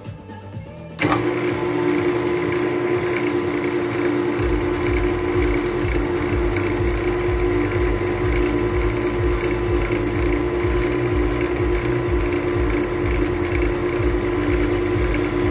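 Wood lathe running with a steady motor hum while a gouge cuts a spalted beech bowl, giving a rough scraping hiss; it comes in abruptly about a second in after music, and from about four seconds a low rapid rhythmic thrumming joins.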